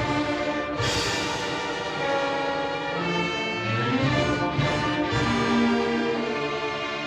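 Orchestral film score led by brass, with sustained chords that shift every second or so.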